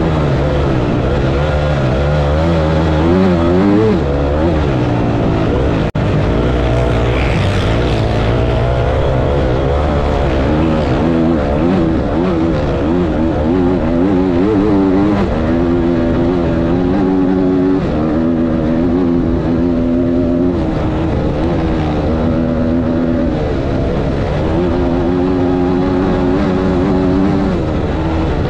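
Dirt bike engine heard from on board while riding a sand track, revving up and down with gear changes, then holding steadier revs for stretches in the second half. A momentary break in the sound about six seconds in.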